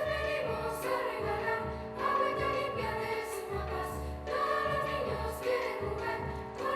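Children's choir singing held notes with instrumental accompaniment over a low pulsing beat.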